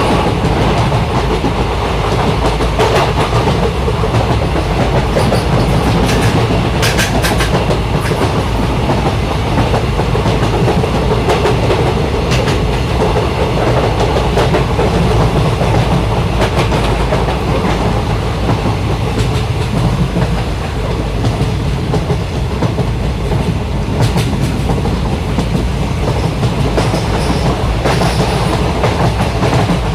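A train running along the track: a steady, heavy rumble with occasional sharp clicks of the wheels on the rails.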